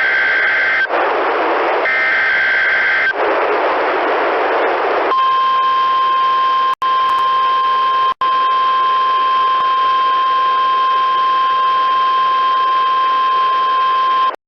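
Two short bursts of EAS/SAME digital header data, a buzzy two-tone squawk, separated by radio hiss. Then, from about five seconds in, the NOAA Weather Radio warning alarm tone: a steady single-pitch tone lasting about nine seconds, with two brief dropouts, cut off suddenly. This is the tone that activates weather alert radios, sent here as a weekly test.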